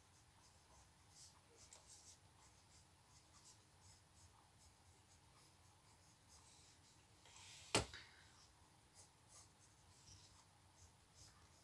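Faint scratching of coloured pencil strokes on paper, short irregular strokes, with one sharp click about eight seconds in.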